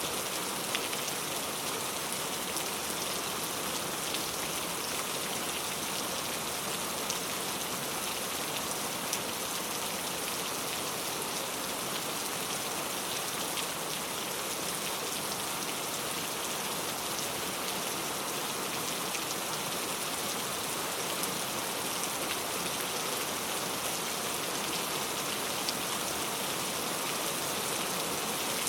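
Steady rain falling on a surface, an even hiss with scattered faint drop ticks and no thunder.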